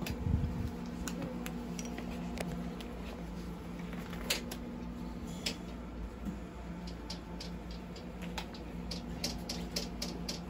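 Steady low hum of operating-room equipment, with scattered light clicks and ticks of handling, a few bunched together near the end.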